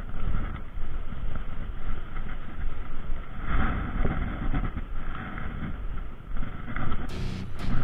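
Wind buffeting an action camera's microphone, a rough, uneven rumble. About seven seconds in it cuts abruptly to music.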